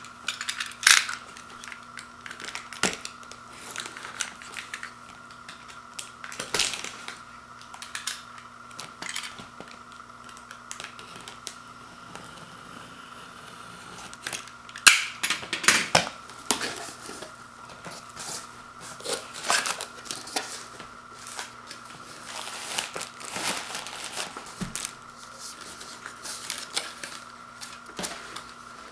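Cardboard box being handled and slit open with a box cutter: irregular scraping, tapping and tearing of the tape and box, loudest about halfway through. Then the cardboard flaps are folded back and styrofoam packing is rubbed.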